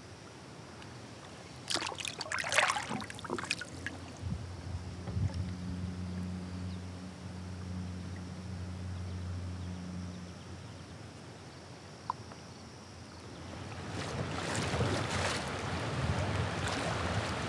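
Water splashing sharply a couple of times about two seconds in, as a smallmouth bass is let go into the river. A low steady hum follows for several seconds, and near the end river water rushes past the drifting kayak over a fast, rippling stretch, louder toward the end, with some wind on the microphone.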